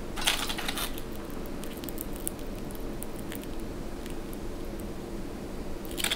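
Small tabletop handling sounds: a brief rustle shortly after the start, then scattered faint clicks and taps as the food and dishes are moved, over a steady low hum.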